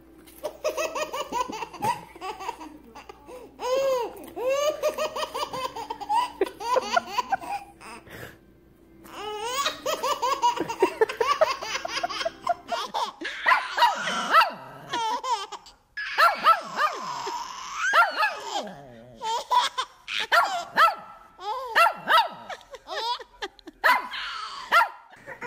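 Babies laughing in repeated giggling bursts that rise and fall in pitch; after about half way a different baby's louder laughter mixes with a small dog barking.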